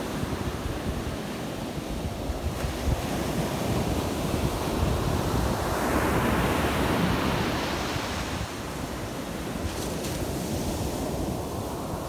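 Storm-driven surf breaking and washing up a sandy beach, with wind buffeting the microphone. A wave's wash swells up about halfway through and then fades back.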